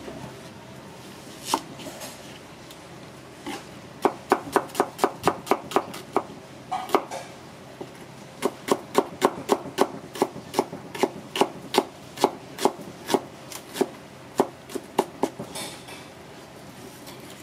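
Chef's knife dicing an onion on a plastic cutting board, the blade knocking the board in quick even strokes, about three to four a second. The strokes come in two runs with a short pause between them.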